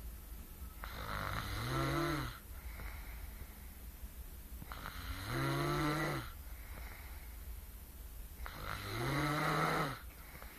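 A woman snoring in her sleep: three long snores about four seconds apart, each with a pitch that rises and then falls.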